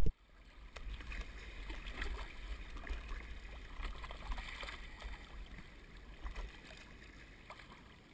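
River water rushing and gurgling around a kayak at the foot of a small rapids, with a few light knocks; the water sound slowly fades.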